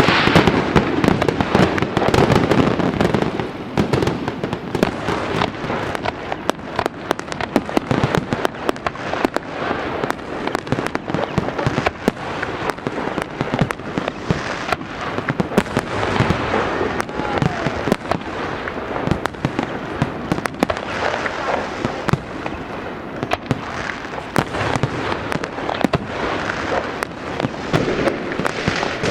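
Fireworks going off in a dense, continuous barrage of crackles and bangs, heaviest in the first few seconds.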